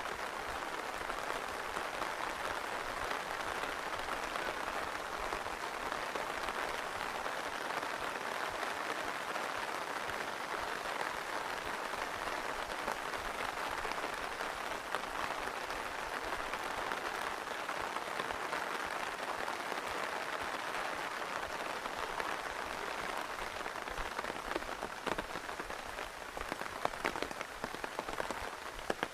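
Rain falling steadily, an even hiss of many drops. Toward the end, sharper and louder individual taps come through the hiss.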